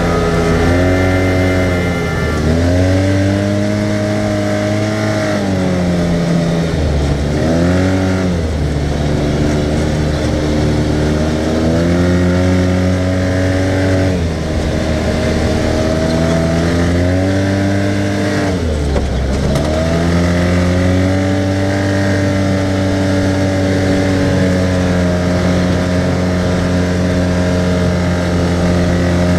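Arctic Cat side-by-side's engine running under way, its pitch repeatedly dropping as the throttle is let off and climbing again as it is opened, several times over.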